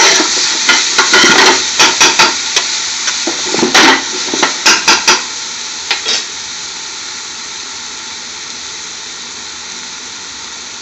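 Chopped onions and garlic sizzling in hot oil in a large metal pot, with a metal spoon stirring and knocking against the pot for about the first six seconds; after that only the steady sizzle of the frying onions.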